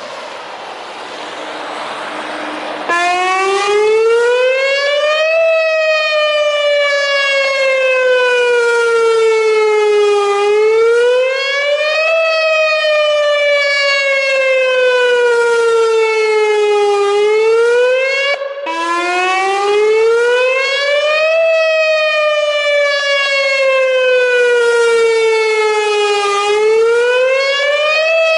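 Whelen WPS-2910 electronic outdoor warning siren sounding its wail tone for a test. Its pitch rises over two to three seconds and then falls slowly over about five, again and again, with a brief break about two-thirds of the way through. The wail comes in about three seconds in, after a swelling rush of noise.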